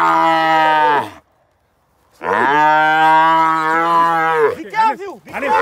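Cattle mooing: two long, loud moos with a short pause between, the first ending about a second in and the second lasting a little over two seconds.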